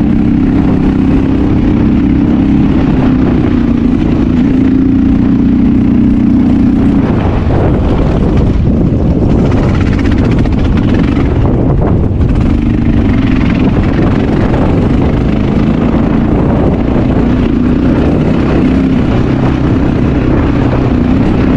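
2007 Honda XR650L's single-cylinder four-stroke engine running as the bike climbs, with heavy wind buffeting the microphone. For several seconds in the middle the engine note breaks up under a rush of wind, then comes back.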